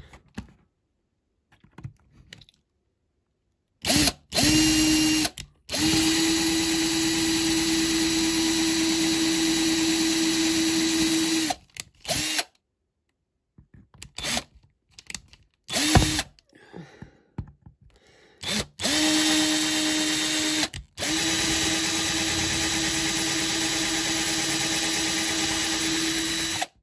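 Power drill running as it drills out the rivets of a die-cast toy car's baseplate, with a steady motor whine. After a couple of short blips it runs for about six seconds, gives a brief burst in the middle, then runs again for about eight seconds with one short break.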